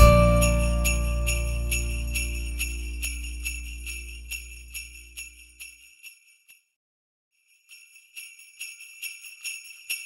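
A country band's closing chord of electric and acoustic guitars with bass, ringing out and fading away over about six seconds, with jingle bells shaken in a steady beat over it. The bells stop for about a second, then start up again on their own.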